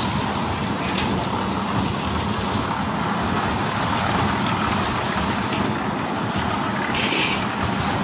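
Concrete mixer machine running steadily, with a continuous engine drone and rattle. A short, brighter hiss comes about seven seconds in.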